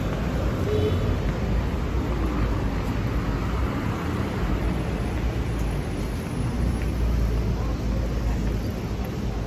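Steady city street traffic noise: a low, even rumble of cars on the road.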